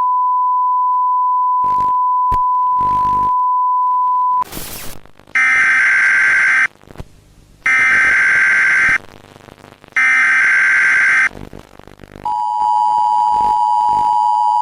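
A steady high beep tone holds for about four seconds, then cuts off in a short burst of glitchy static. Three buzzy Emergency Alert System data bursts follow, evenly spaced. Near the end the EAS two-tone attention signal starts and keeps sounding.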